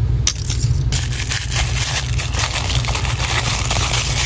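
Crinkly plastic wrapper of an LOL Surprise toy being crumpled and pulled open by hand: dense crackling that thickens about a second in, over a steady low hum.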